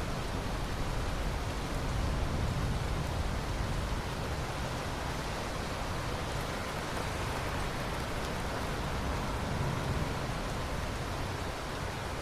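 Steady rain falling, an even hiss with no distinct claps or drops standing out.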